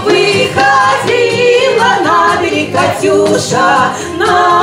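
Two women singing a song together into handheld microphones, their voices amplified.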